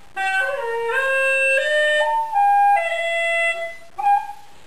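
Hulusi, a Chinese gourd free-reed pipe, playing a short melody of held notes that step up and then back down, breaking off with one brief final note about four seconds in.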